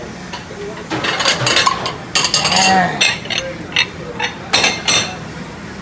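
Dishes and cutlery clattering and clinking as they are handled, with a run of sharp clanks from about one to five seconds in.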